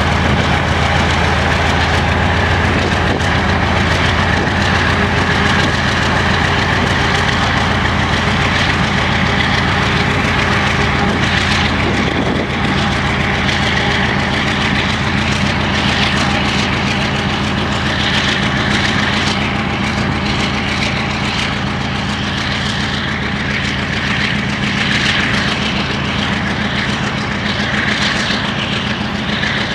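GE C36-7i diesel locomotive's V16 engine working steadily as it pulls a freight train away, with the freight wagons rolling past. Short sharp noises from the wagons come through in the second half.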